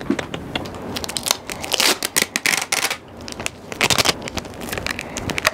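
Adhesive tape pulled off a roll and torn in short, irregular rips, with wrapping paper crinkling; the loudest rips come about two and four seconds in.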